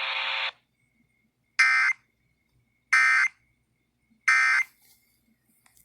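Emergency Alert System end-of-message data bursts: three short, harsh digital bursts about 1.3 seconds apart, marking the end of the relayed warning. Before them, a steady hiss cuts off about half a second in.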